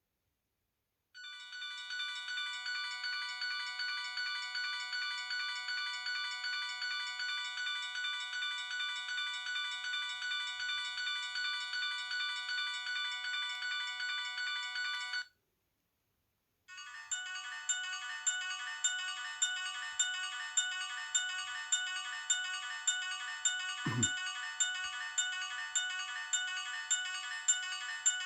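Mojo Chat mobile phone playing its built-in ringtones: one electronic ringtone melody for about fourteen seconds that stops, then after a short gap a second ringtone with a regular beat. A single brief knock sounds partway through the second tune.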